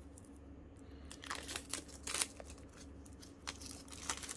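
Plastic shrink wrap crinkling and tearing as it is peeled off a deck of game cards, in irregular rustles and crackles from about a second in.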